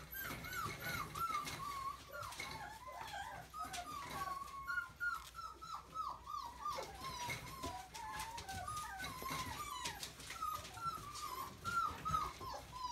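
Golden retriever puppy whining: a continuous string of short, high, arching whimpers, several a second.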